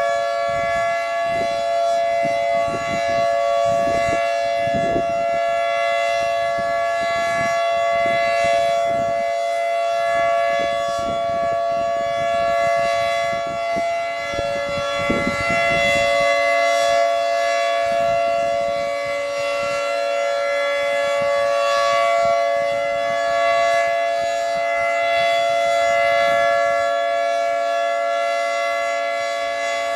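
Federal Signal 2T22 two-tone outdoor warning siren sounding a steady, unwavering chord, the Alert (steady) signal used for tornado warnings. Its loudness swells and fades every few seconds as the rotating head sweeps past.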